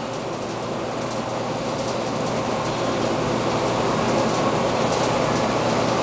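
In-line duct blower of an air-makeup unit running on a variable frequency drive, its steady rushing air noise slowly growing louder as the drive frequency is stepped up from 30 Hz to about 34 Hz.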